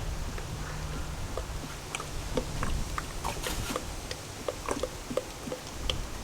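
Small parts being handled by hand: scattered light clicks and taps over a low steady rumble, with a short hiss about three and a half seconds in.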